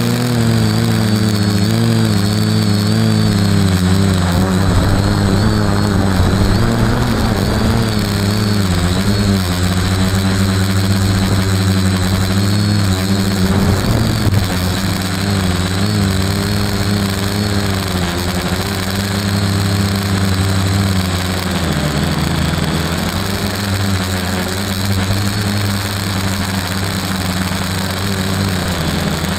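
FPV aircraft's motors and propellers running in flight, heard from on board, a several-toned hum whose pitch wavers up and down with the throttle and dips about 21 seconds in, over a steady rush of air.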